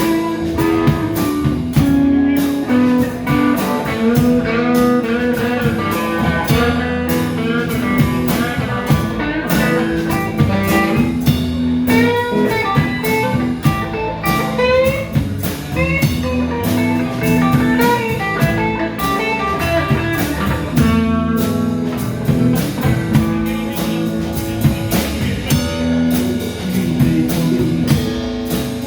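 Live band playing an instrumental jam in a bluesy style, with guitar over a drum kit.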